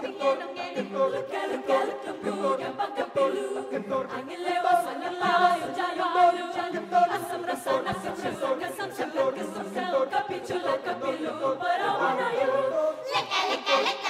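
A mixed choir of women's and men's voices sings together over live musical accompaniment with a steady percussion beat.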